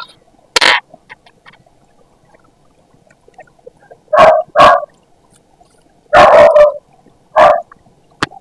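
A dog barking in short loud barks, singly and in pairs, about six times with pauses between.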